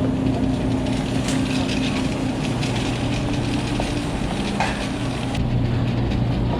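A vehicle running steadily, a continuous rumble with a low, even hum and a couple of brief clicks.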